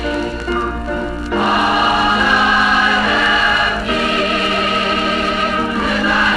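A choir singing a gospel song in held chords, the chord changing every couple of seconds.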